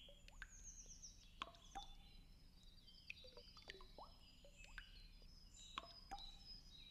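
Near silence of a wetland: faint, scattered short chirps and whistles, with a brief falling trill near the start, and a few small plops or clicks.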